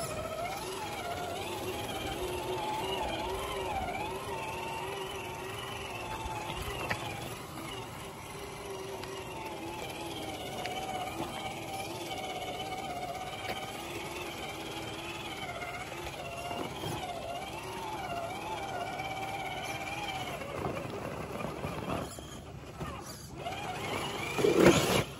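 RC rock crawler's brushed electric motor and geared drivetrain whining, the pitch wavering up and down with the throttle as it crawls over rock. A short louder sound comes just before the end.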